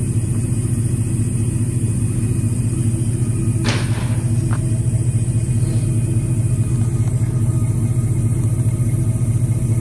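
A vehicle engine idling steadily with a low hum, and a short sharp noise about three and a half seconds in.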